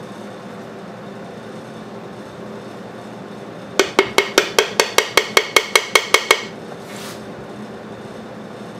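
Quick run of about a dozen light hammer taps, about five a second, on the side cover of an old Tecumseh small engine, each with a short metallic ring, knocking the stuck cover loose from its gasket.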